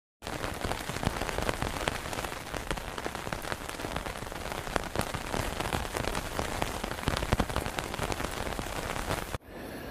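Heavy rain falling on a hammock tarp overhead: a dense, steady hiss with many separate drop hits, cutting off suddenly near the end.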